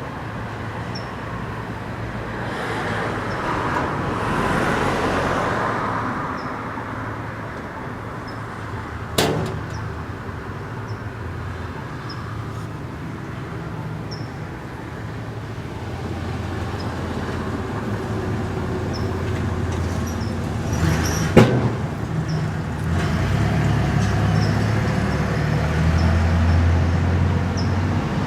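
Steady rumble of road traffic going by, swelling and fading, with two sharp knocks, one about a third of the way in and one about three-quarters through.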